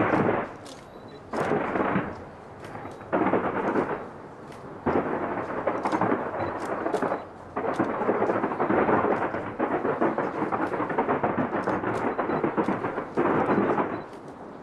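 Fireworks show going off in volleys of booming bursts. Each volley starts suddenly and rumbles on for one to three seconds, about six in all, with sharp crackles over them.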